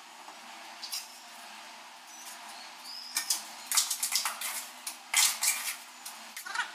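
A steel trowel scraping and clinking against a metal basin while scooping and mixing cement mortar. The clatter starts a few seconds in and comes in quick, uneven strokes.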